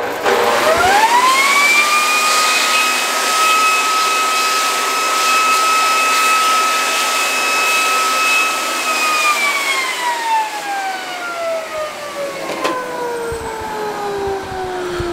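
Leaf blower spinning up, its motor whine rising to a steady pitch over a rush of air about half a second in, running steady, then let off about nine seconds in and winding down slowly as the whine falls in pitch.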